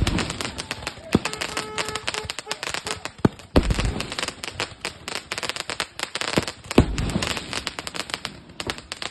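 Fireworks and firecrackers going off: rapid crackling pops throughout, with three heavier bangs, one at the start, one about three and a half seconds in and one about seven seconds in.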